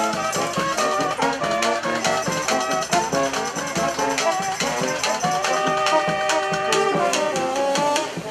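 Street brass band playing live: trumpets and trombones carrying a tune over drums keeping a steady beat.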